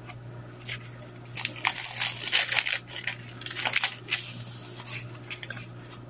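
Paper pages of a handmade junk journal being turned and handled: a run of light rustles and small clicks, busiest from about a second and a half in until nearly four seconds.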